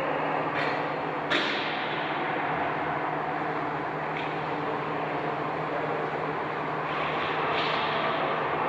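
Steady din of a game in play, with one sharp crack about a second in and a few fainter knocks later, like a ball, puck or stick striking.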